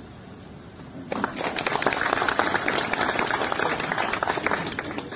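A small crowd clapping, starting about a second in and dying away near the end.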